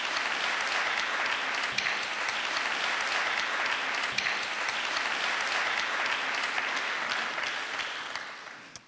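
Audience applauding steadily after a poetry reading, fading out near the end.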